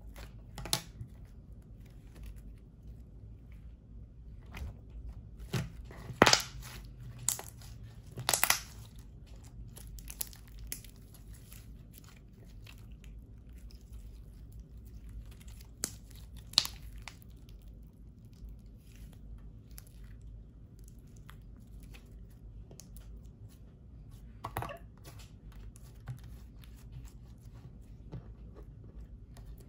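Hands stretching, folding and pressing slime mixed with lipstick, giving sticky clicks, pops and crackles at irregular intervals, a few of them louder.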